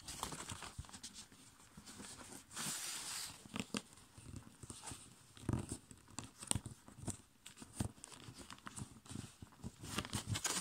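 A sheet of A5 copy paper being folded and creased by hand on a tabletop: irregular rustling and crinkling with many short sharp clicks as fingers press the folds down, and a longer rustle about two and a half seconds in.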